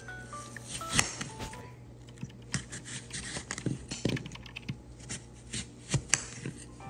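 Knife slicing through a crisp apple, with irregular sharp clicks as the blade hits a glass cutting board.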